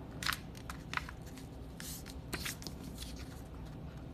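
Construction paper being folded in half and creased by hand: a few short papery rustles and crinkles.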